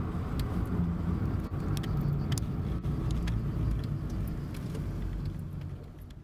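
Car engine and road noise heard from inside a moving car's cabin: a steady low rumble with a few faint clicks. It fades away near the end.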